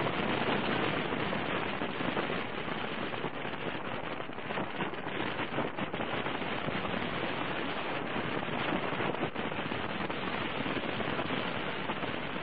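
Steady wind rush and crackling buffeting on the microphone of a camera riding on a moving motorcycle, mixed with tyre hiss on the wet road.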